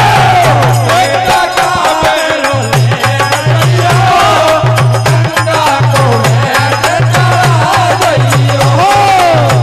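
Live devotional bhajan music between sung lines: a fast, steady drum beat with hand cymbals jingling and a melody rising and falling above it.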